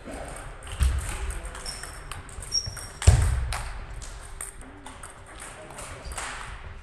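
Table tennis rally: the plastic ball clicks off the bats and the table in quick, irregular succession, with reverberation from a sports hall. Two heavier thuds stand out, about a second in and about three seconds in, the second the loudest.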